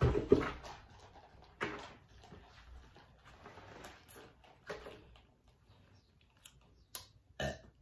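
Scattered light knocks and clicks of things being handled, with a louder thump right at the start.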